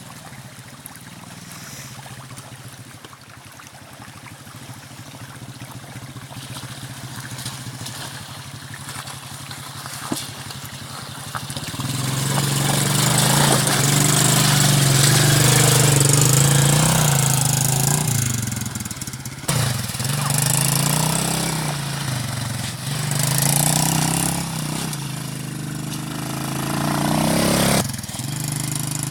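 A 125cc ATV engine running at a low, steady idle. About twelve seconds in it gets much louder and revs up and down several times.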